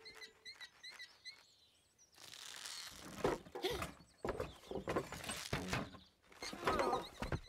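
A small bird chirping a few times, then rustling and scraping with a string of clattering knocks.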